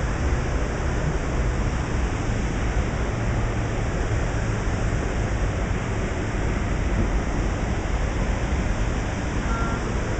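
Steady rushing whoosh of falling water from a resort pond's waterfall and fountain, loud enough to bury voices.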